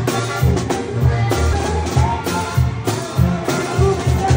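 Band music with a steady, pulsing bass beat and a melody line over it.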